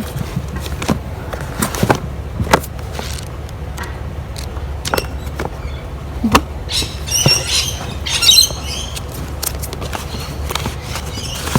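Books and other items being handled and sorted in a trash pile: scattered knocks and taps, then a couple of seconds of crinkly rustling past the middle, the loudest part, over a steady low rumble.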